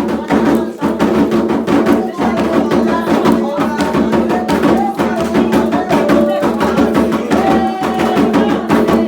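Candomblé ritual music: atabaque hand drums beating a steady rhythm under a sung chant.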